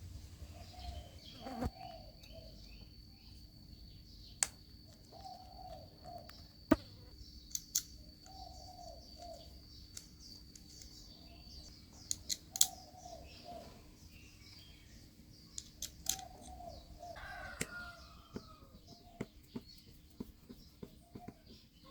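A dove cooing over and over, one low call about every two and a half seconds, with scattered sharp clicks and taps in between.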